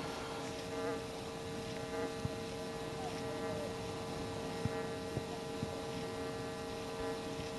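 White's V3i metal detector putting out a steady buzzing tone through its speaker while it is being ground balanced.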